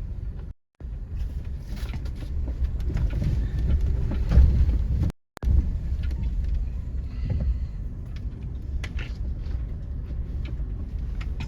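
Toyota 4Runner crawling over a rough off-road trail, heard from inside the cabin: a low rumble with scattered knocks and creaks. The sound drops out completely twice, briefly, about half a second in and again about five seconds in.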